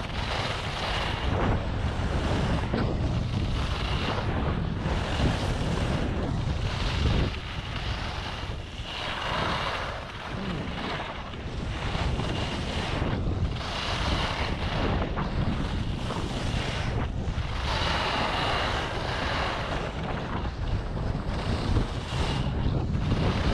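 Wind buffeting the action camera's microphone as the wearer skis downhill at about 30 km/h, a steady rumble. Over it, ski edges scrape and hiss across groomed snow, swelling with each turn every second or two.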